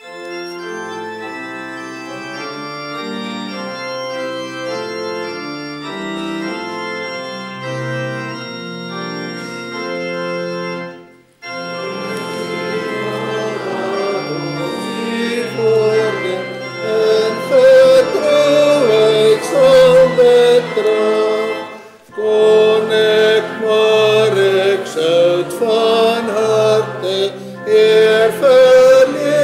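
Church organ playing a psalm tune in held chords. After a short break, a congregation joins in about 12 seconds in, singing a metrical psalm to the organ, with a brief pause between lines near 22 seconds.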